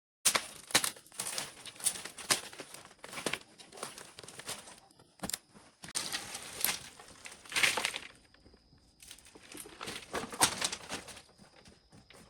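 Irregular crackling and rustling with frequent sharp snaps, as of dry material being handled.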